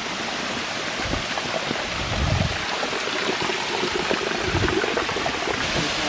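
Steady rush of running and trickling water, with a few low thumps.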